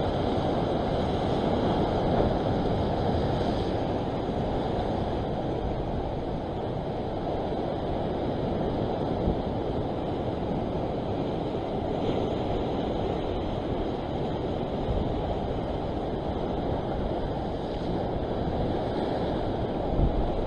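Steady rushing of wind buffeting the microphone, mixed with the wash of sea surf.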